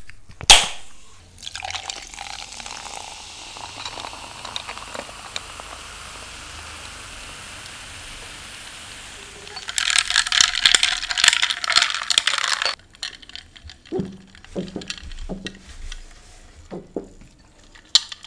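Can of Coke cracked open with a sharp click just after the start, then cola poured over ice in a glass, a steady fizzing hiss. About ten seconds in comes a much louder crackling fizz that stops suddenly about three seconds later, followed by a few light knocks of ice and straw in the glass.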